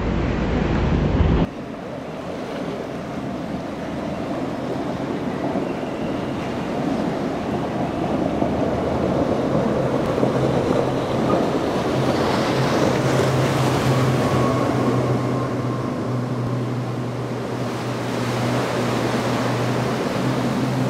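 Outboard-powered boats running through a choppy inlet: steady engine drone under the rush of breaking waves and spray, with wind buffeting the microphone.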